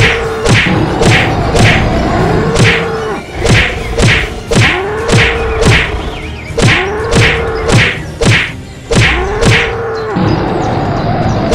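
Cartoon fight sound effects: sharp whacks about twice a second, with a short animal call that rises and falls repeating about every second and a half. The hits stop for the last second or so.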